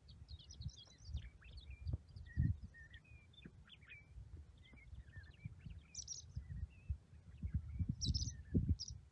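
Small birds chirping and twittering in many short, high calls, faint, over low gusty rumble from wind on the microphone.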